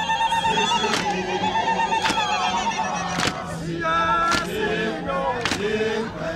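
A group singing a Zulu ijadu, a regimental war song, with several voices together and some high wavering notes held over them. A sharp beat falls about once a second, keeping time with the song.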